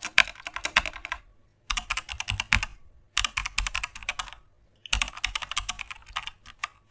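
Rapid typing on a computer keyboard, in four quick bursts of keystrokes separated by short pauses.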